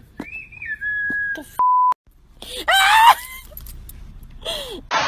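Dog giving a long high-pitched whine that drops in pitch and then holds, followed by a short censor bleep. Then come more scream-like cries, one rising in pitch and a short one falling.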